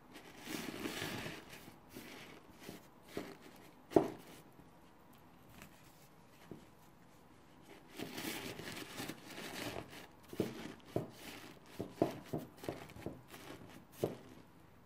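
Paper napkins being handled and crumpled, rustling and crinkling in two stretches. A single sharp knock comes about four seconds in, and a run of short knocks follows near the end.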